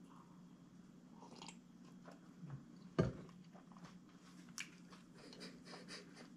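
A man sipping from a metal cup and then chewing a mouthful of sub sandwich, with scattered small mouth clicks. About three seconds in comes one sharp knock as the cup is set down on the table. A faint steady hum runs underneath.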